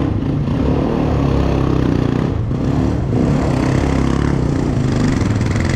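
Quad (ATV) engines running steadily, their pitch wavering only slightly.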